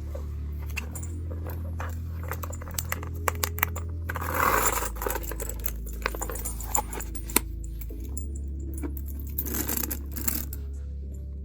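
Background music with a low, held bass line that cuts off near the end, over handling sounds: rustling of wrapping twice and light metallic clinks like a handbag's chain and hardware jingling.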